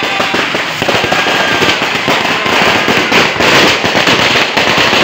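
Fireworks and firecrackers going off in a loud, dense barrage of rapid overlapping pops and crackles.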